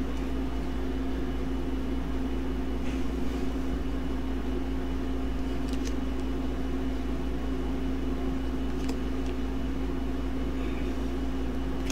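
Air conditioner running with a steady hum and a constant droning tone, with a few faint ticks of playing cards being handled.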